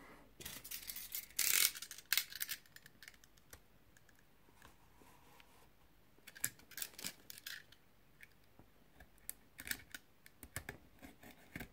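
Plastic shrink-wrap on a smartphone's cardboard box being cut and picked open: scattered crinkles, scrapes and light ticks. The loudest is a short scratchy rush about a second and a half in, followed by a few quiet seconds and then more ticks and crackles.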